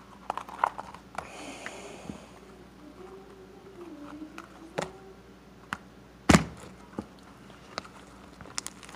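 Hand-handling noise of stretchy homemade slime being pulled and played with: scattered small clicks and knocks, with one loud thump a little past the middle.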